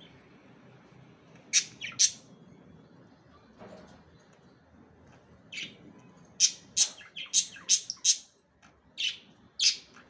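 Budgerigars chirping in short, sharp high-pitched calls: two about one and a half seconds in, then a quick run of about ten chirps from about five and a half seconds in until near the end.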